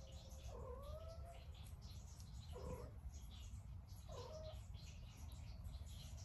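Pet cat meowing softly three times, short calls a second or two apart, the first rising in pitch. Faint light ticks run throughout.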